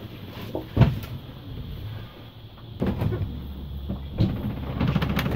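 Low steady hum of a sailboat under way, with several sharp knocks and bumps, one about a second in and more from about three seconds in.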